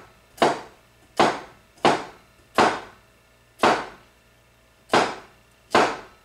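A hunting knife slicing through peeled yellow crookneck squash and striking a wooden cutting board: seven sharp knocks, about one a second.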